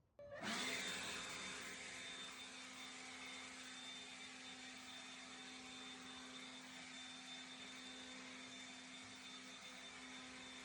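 An electric power tool's motor switches on just after the start, spins up within half a second, then runs steadily with a whir.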